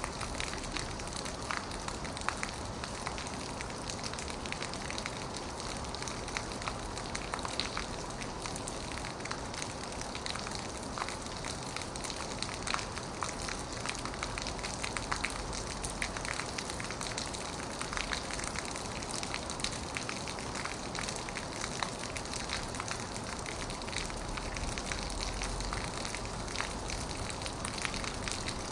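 Heavy rain falling on an old metal roof: a steady hiss dense with sharp, irregular drop ticks.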